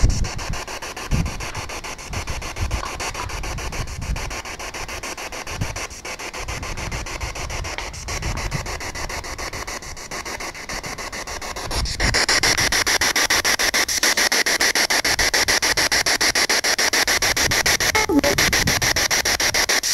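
Ghost box (spirit box) sweeping radio stations, giving a hiss of static chopped into rapid pulses while it waits for an answer to a spoken question. There is low rumbling under it in the first half; about twelve seconds in the static gets much louder and stays steady.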